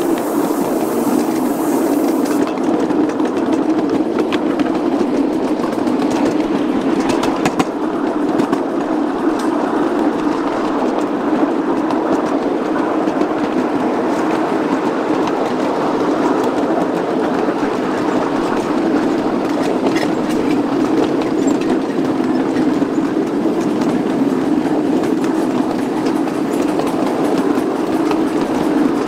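Ride-on miniature railway train running steadily, heard from aboard: continuous wheel-on-rail running noise with a steady low hum and a few scattered clicks from the track.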